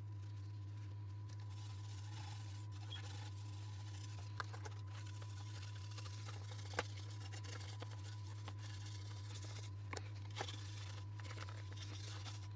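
Cloth rubbing and wiping over a plastic headlight reflector and lens, with a few light clicks from handling the parts. A steady low hum runs underneath.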